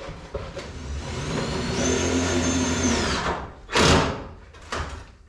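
Power drill running steadily for about two seconds, typical of fixing a junction box in place during rough-in wiring. About a second after it stops comes a short, loud burst of noise, the loudest moment.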